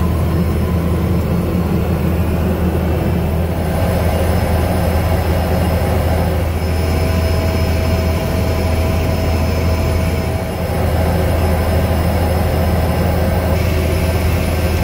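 Single-engine floatplane's engine and propeller running steadily at low power while it taxis on the water, heard from inside the cabin: a steady deep drone with a faint high whine.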